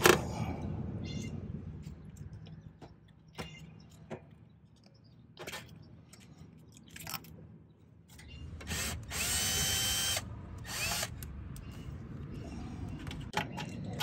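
Light clicks and scrapes as wire connectors are worked off the terminals of an air conditioner's dual-run capacitor with a screwdriver, then a cordless drill/driver whirring for about two seconds, its whine rising at the end.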